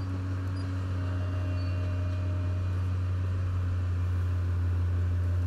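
Tracked feller buncher's diesel engine running steadily, a deep even hum, while the machine swings a cut tree in its felling head.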